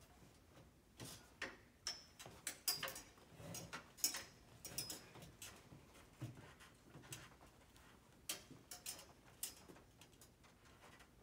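Faint, irregular clicks, taps and rustling, with a few light clinks, from people moving and handling things behind a curtained puppet stage. They are busiest in the first half and thin out later.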